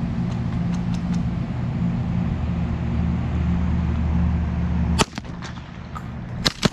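Strong wind rumbling on the microphone for about five seconds. It stops abruptly with a sharp shotgun shot, and a second shot follows near the end.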